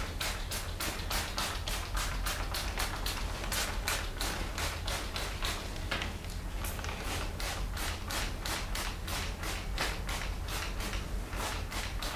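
Hand-trigger spray bottle squirting disinfectant solution in quick repeated pumps, about three a second, each a short hiss, as the PPE coverall, goggles and mask are sprayed down.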